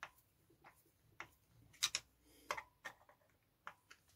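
Screwdriver clicking and scraping in the head of a countersunk screw as it is driven home into a moped engine's ignition plate. The clicks are sharp and irregularly spaced, the loudest two near the middle.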